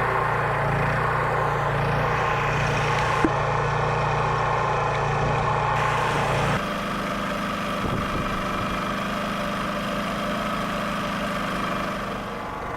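Champion portable inverter generator running at a steady speed, a continuous engine hum. About six and a half seconds in the sound changes abruptly and becomes slightly quieter, with less low rumble.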